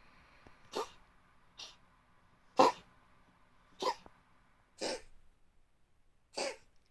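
An Oriental Shorthair cat coughing in a fit: six short dry hacks about a second apart, the loudest near the middle, as if trying to bring something up. The owners don't know the cause and wonder about worms or a breed trait.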